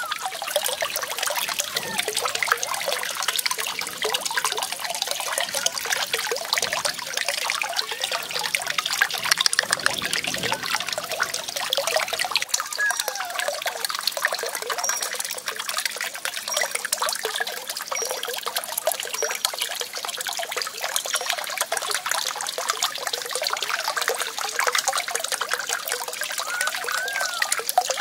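Water trickling and splashing steadily as it pours from bamboo pipes onto small turning bamboo water wheels and falls into a shallow pool.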